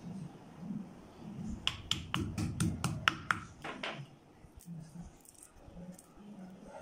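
A quick run of about ten sharp clicks and knocks with dull thuds, hard pieces of roasted coconut and a stone mortar being knocked and handled, followed by a few faint ticks.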